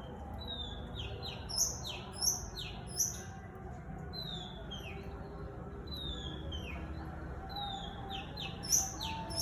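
Long-tailed shrike (cendet) singing in phrases of repeated whistled notes that glide downward, mixed with sharp higher chips, with a few louder notes.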